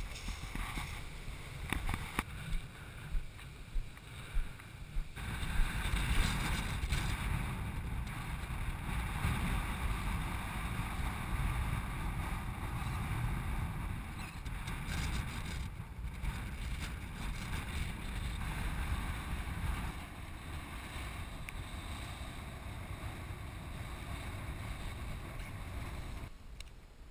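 Wind buffeting an action-camera microphone in a steady low rumble and hiss. In the first five seconds there are repeated knocks and rattles from a vehicle jolting along a rough sand track, and the sound changes abruptly several times.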